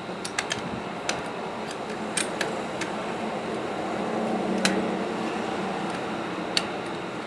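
Light clicks and taps of shotgun parts being handled during cleaning, scattered irregularly with a sharper click just past the middle, over a steady background hum.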